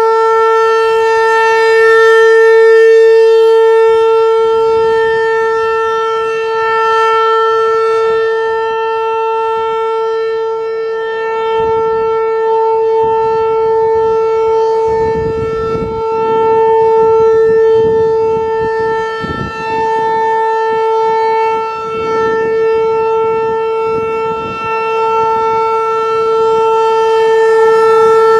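Federal Signal 508-128 outdoor warning siren sounding a steady full-alert tone. Its single pitch holds level while the loudness slowly swells and fades as the siren head rotates.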